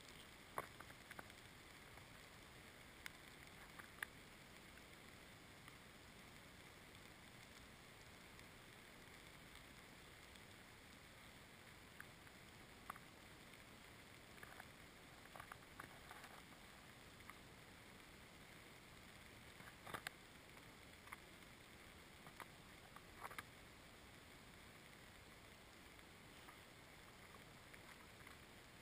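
Near silence: a faint hiss with scattered soft crunches and clicks of a person shifting on crusted snow and handling ice-fishing gear close to the microphone.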